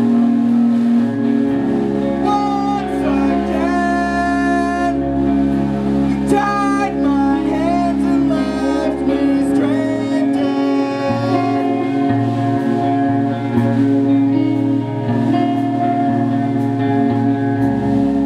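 A band playing, with a sung vocal line over guitar and held low bass notes.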